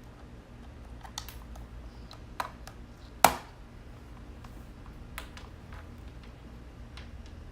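Scattered small clicks and taps of hands handling audio equipment, with one loud knock a little over three seconds in, over a low steady hum.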